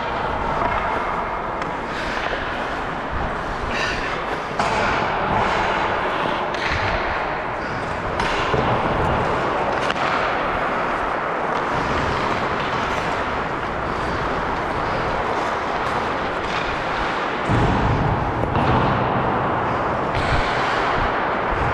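Ice hockey play: skate blades scraping and carving on the ice, with occasional knocks from sticks, puck and boards.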